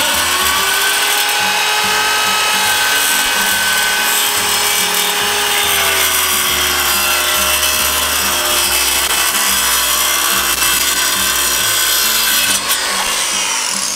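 Corded circular saw running under load as it rips a long cut through a board for bed slats, guided along a clamped straightedge. A steady motor whine sits over the cutting noise, and its pitch dips slightly partway through.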